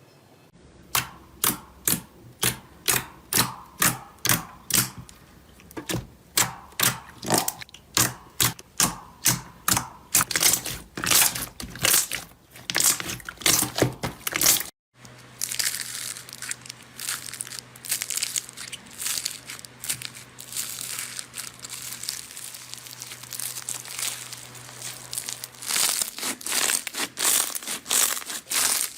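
Slime being squeezed and pressed by hand, giving a regular run of sharp crackling pops about two a second. After a cut about halfway through, the crackling turns into a denser, continuous crinkling, and the sharper pops return near the end.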